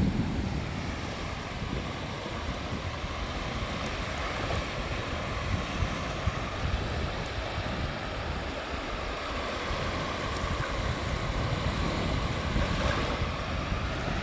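Sea surf washing onto a beach: a steady wash of breaking waves that swells slightly near the end, with wind rumbling on the microphone.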